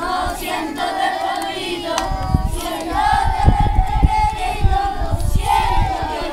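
A group of children singing together, many voices holding long notes in unison. From about two seconds in, wind rumbles on the microphone.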